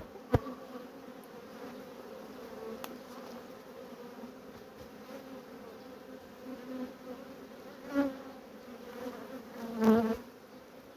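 Honey bees humming steadily from an opened hive whose colony is somewhat stirred up. A single sharp knock comes just after the start, and bees buzz louder past close by twice, about 8 and 10 seconds in.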